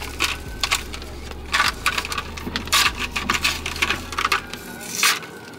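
Plastic car air freshener packaging and vent clips being handled and fitted: a run of irregular clicks, rattles and rustles, over a low steady hum.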